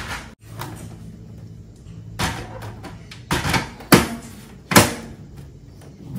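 Sharp plastic clacks and knocks as a tower air purifier's housing is handled. There are about five, the loudest two about four and five seconds in.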